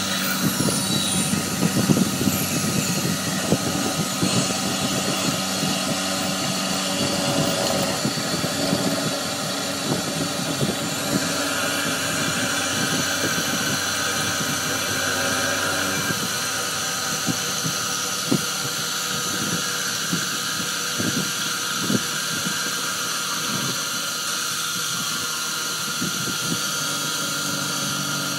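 Sherline benchtop CNC milling machine running with its fourth, rotary axis: a steady motor hum with several pitched whines and scattered sharp ticks.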